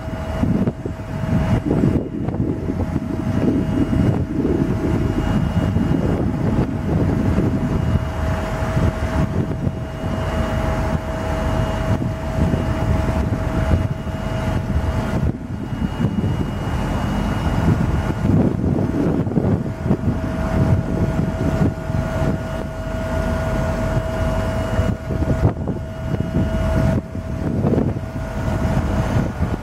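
1995 Ford F700 dump truck's 7.0L gas V8 running steadily while the single-ram hoist slowly lowers the steel dump bed. A steady whine runs through the engine sound, dropping out for a few seconds around the middle and again near the end.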